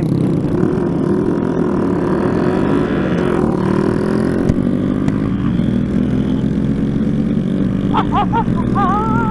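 Honda Grom single-cylinder motorcycle engine running steadily at riding speed, its pitch drifting slightly, with wind rushing past.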